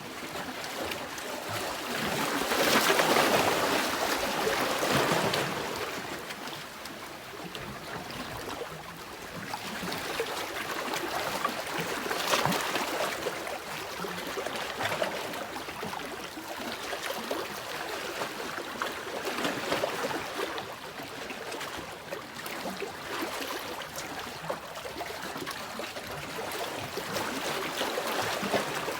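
Sea waves washing in and drawing back, a rushing water noise that swells and eases every several seconds. The biggest surge comes about three seconds in.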